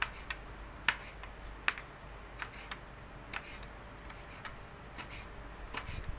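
A blade cutting through chili: a string of irregular sharp taps and clicks, about two a second, over a faint steady hum.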